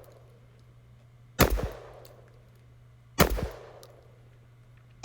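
Beretta 1301 semi-automatic 12-gauge shotgun firing 00 buckshot: three loud single shots about 1.8 seconds apart, the last one right at the end, each with a brief ringing tail.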